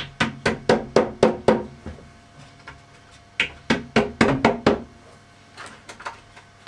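A hammer tapping an OSB panel down into the glued rebate of an OSB cabinet carcass. The taps come in two quick runs of sharp knocks, about four a second, with a pause of about two seconds between them and a few lighter taps near the end.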